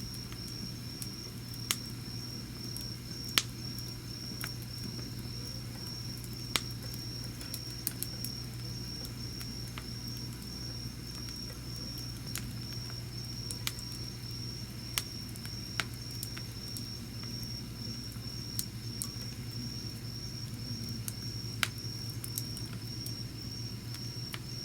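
Wood campfire crackling, with scattered sharp pops. Behind it an insect chirps steadily in an even pulse about twice a second, over a steady low hum.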